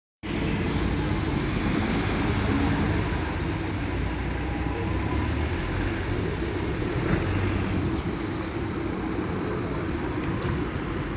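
Road traffic on a city street: a steady mix of engine and tyre noise from passing vehicles.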